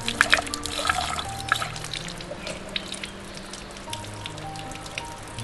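Water running from a bamboo spout and splashing over hands as wild mushrooms are rinsed under it, with background music; the splashing is busiest in the first second or two and then eases off.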